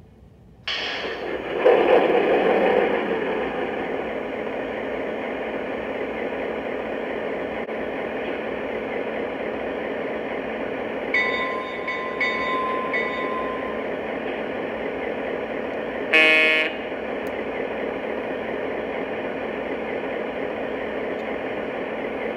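Model diesel locomotive sound system on a Lionel EMD SW7: diesel engine sound that starts suddenly about a second in and then runs steadily, with one short horn blast about three-quarters of the way through.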